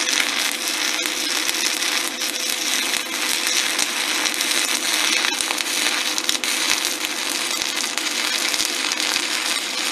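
Stick (SMAW) welding arc from a SanRex SanStick 160S inverter burning a 1/8-inch E7018 electrode: a steady, dense crackle that stops abruptly at the very end as the arc is broken. The arc runs smoothly, the rod welding well.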